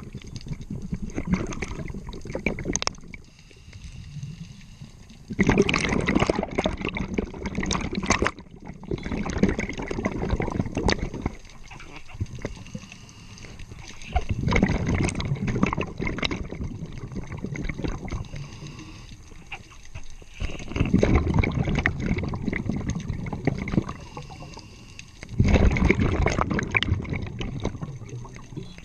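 A scuba diver breathing through a regulator, heard underwater. Exhaled bubbles rush out in four loud, gurgling bursts a few seconds apart, with quieter breathing through the regulator between them.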